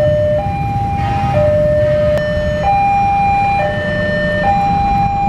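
Electronic level-crossing warning siren sounding a two-tone hi-lo alarm that switches pitch about once a second, over the low rumble of a passing train.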